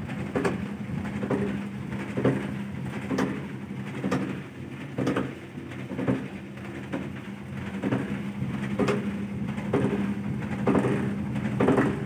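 Godrej EON 7 kg top-loading washing machine running with a steady motor hum and a knock about once a second. The knocking is the overload sound of its loose drum striking inside the machine, which the owner warns can damage it internally.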